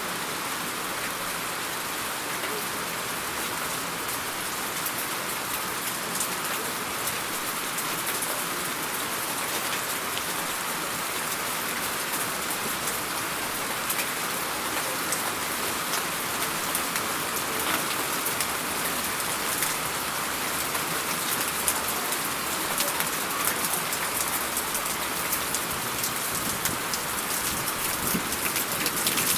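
Steady rain falling, with many individual drops landing as sharp ticks over the hiss; the drops grow a little denser and louder in the second half.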